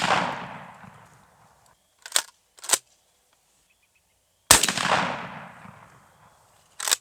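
Winchester SXP 12-gauge pump shotgun firing 3-inch turkey loads. The echo of a shot fades away, and the pump action is racked back and forward with two sharp clacks about two seconds in. A second shot follows about four and a half seconds in, its echo rolling away over about two seconds, and the pump clacks again near the end.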